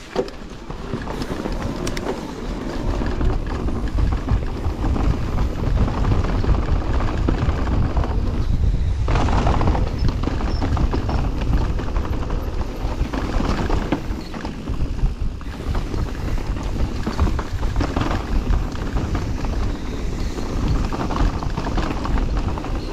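Wind rumbling on an action camera's microphone over the constant clatter of an enduro mountain bike rolling fast downhill on a trail: tyres on the ground and the bike rattling, steady throughout.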